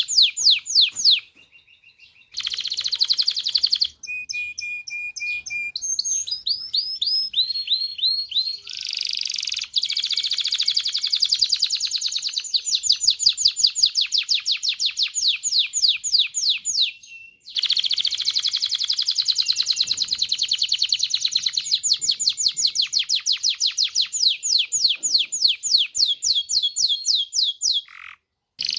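Domestic canary singing a loud song of rapid trills, each phrase a fast run of short repeated notes that drop in pitch, with a few brief pauses between phrases.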